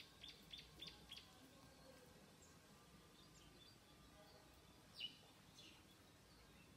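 Faint high-pitched chirping over near silence: a quick run of about five short chirps in the first second, then a single chirp about five seconds in and a few fainter ones after it.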